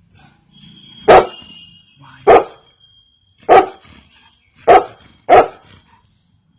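Golden retriever barking: five single loud barks, about a second apart at first, the last two coming quickly one after the other.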